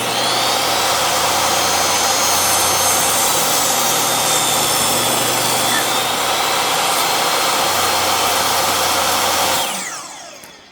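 Electric power tool running at a steady speed for about nine seconds, then switched off and spinning down, its pitch falling, near the end.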